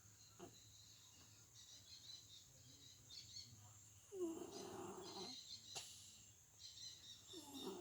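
Siamese kitten snoring in its sleep: two soft, drawn-out snoring breaths about three seconds apart, the second starting near the end, over faint bird chirps and insect hum.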